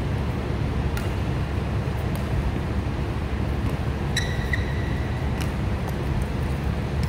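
Steady low rumble of a large indoor sports hall's ventilation, with a few faint clicks and a short high squeak about four seconds in.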